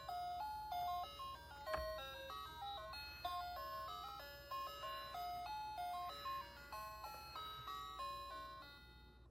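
Electronic tune played by a Fisher-Price Little People school bus toy: a simple melody of plain electronic notes stepping up and down, fading out near the end, with one sharp click about two seconds in.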